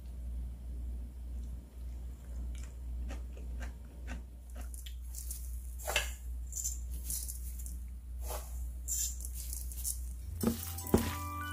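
Whole sesame seeds pattering onto gochujang-coated butterbur in a stainless steel bowl: light rattling ticks that grow busier about halfway through, over a steady low hum. Near the end, music with chiming notes comes in.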